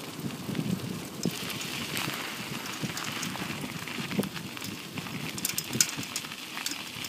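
Bicycle tyres rolling fast over a gravel road: a steady crunching rush with scattered sharp ticks of small stones, one louder tick near the end.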